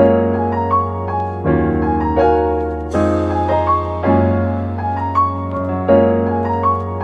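Background piano music: a gentle melody over sustained chords, with a new chord struck every second or two over a steady bass.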